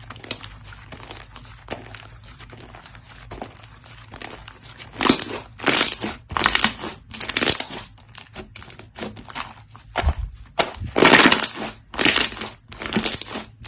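Slime being worked by hand: faint small crackles at first, then from about five seconds in a run of louder squeezes and squishes, roughly one every half second to a second.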